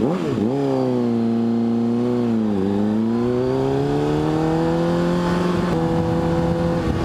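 Motorcycle engine, a Honda CBR RR sport bike's inline-four, pulling away from a standstill: the revs rise sharply at the start, hold, drop at a gear change about two and a half seconds in, then climb steadily and level off.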